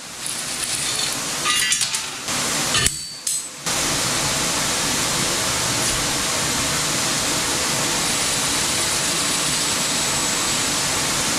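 Scattered metal clinks and clatter of tools and bolts while the fan impeller is unbolted from a dust-collection blower motor. About three and a half seconds in, this cuts to the steady, even rush of a shop fan blowing.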